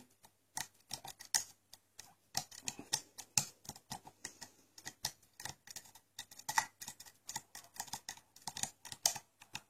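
Light, irregular clicks and scrapes of a Gem hook pick working the pins inside a Lockwood pin-tumbler lock under tension, lifting a high pin at the back to set it.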